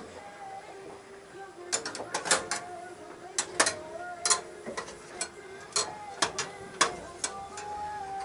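Irregular sharp clicks and knocks of utensils and cookware being handled during galley cooking, some in quick pairs or threes, over quiet background music.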